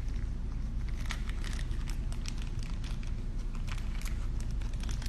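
Irregular small clicks and crackles of parts and packing being handled, over a steady low hum.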